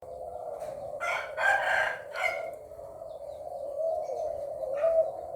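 A rooster crows about a second in, the loudest sound, with stacked pitch lines lasting a little over a second. A low, steady, slightly wavering tone runs underneath throughout, and a shorter faint call comes near the end.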